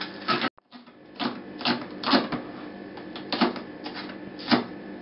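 Chef's knife chopping spring onion on a plastic cutting board: sharp knocks of the blade on the board, unevenly spaced, a few each second. The sound cuts out for a moment about half a second in.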